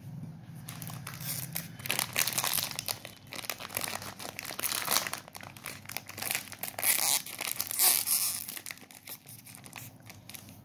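Paper cup liner and plastic cake wrapper crinkling and tearing in the fingers: a run of irregular crackles, loudest in the middle and dying down near the end.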